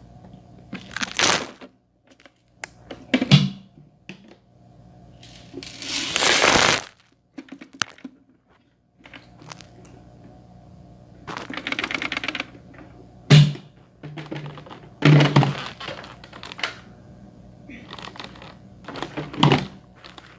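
Crunchy dry debris crunching and crackling in about seven separate bursts with pauses between them, over a faint steady hum.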